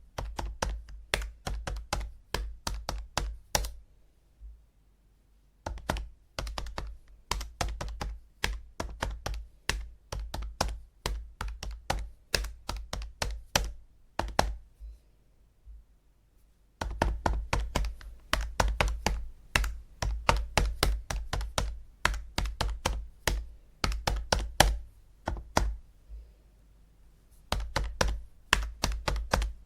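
Calculator buttons being pressed in quick runs of sharp clicks, several a second, with short pauses between runs.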